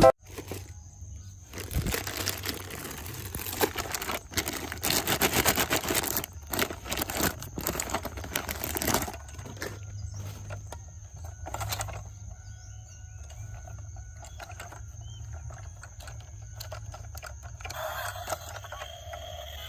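Toy cars being handled: irregular rattling and clicking for several seconds, then quieter handling over a faint steady hum and a thin high whine.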